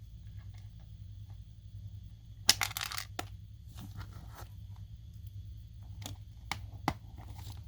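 Small plastic kit parts and their packaging being handled: a short crinkling rustle about two and a half seconds in, then a few light clicks, over a steady low hum.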